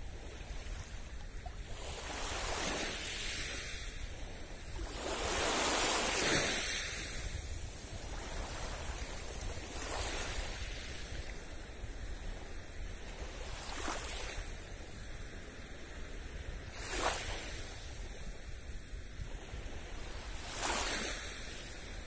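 Small sea waves lapping on the beach, a soft wash of surf every three to four seconds, the fullest about six seconds in, over a steady low rumble.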